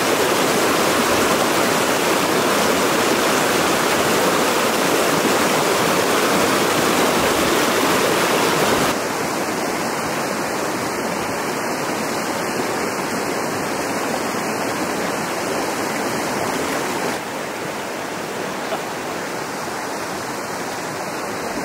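Mountain stream rushing over rocks in a shallow riffle: a steady rush of water. It drops suddenly to a quieter level about nine seconds in, and again a few seconds before the end.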